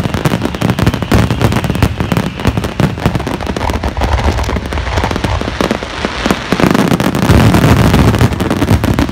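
Dense barrage of aerial firework shells bursting, with many rapid crackling pops over a low rumbling boom. It grows loudest about seven seconds in.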